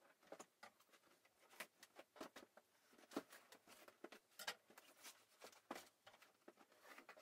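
Faint, irregular taps and rustles of a cardboard box being handled and its flaps pulled open.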